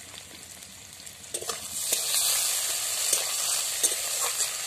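Onions and tomato sizzling in hot oil in a kadai while a spatula stirs them, scraping and tapping against the pan. The sizzle swells about a second and a half in.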